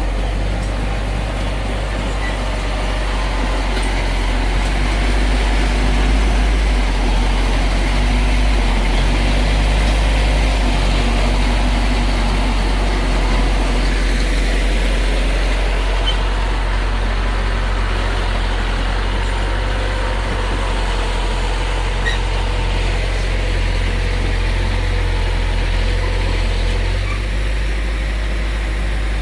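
Bulldozer's diesel engine running steadily under load, a deep continuous rumble.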